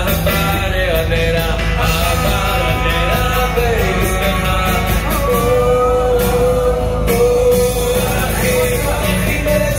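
Music with a singing voice over a steady band accompaniment, the singer holding long notes in the second half.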